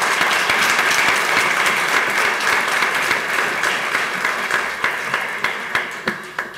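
Audience applauding: dense, even clapping that tapers off near the end.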